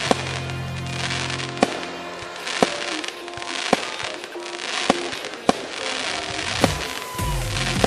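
Aerial firework shells bursting with sharp bangs at irregular intervals, about one a second, over electronic music whose bass drops out partway through and comes back near the end.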